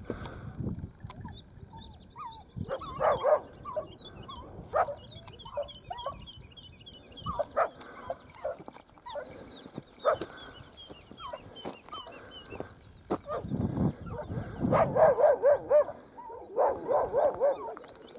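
Hare-hunting dogs giving tongue in the scrub, barking and yelping in short bursts while working a hare's scent, with a quick run of yelps near the end.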